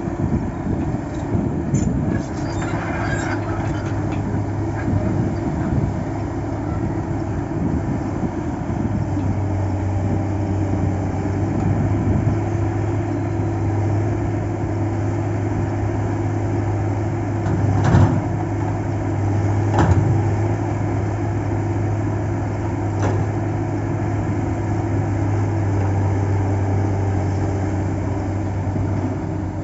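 Diesel engine of a Cat log-loading excavator running steadily, with two sharp knocks about two seconds apart past the middle.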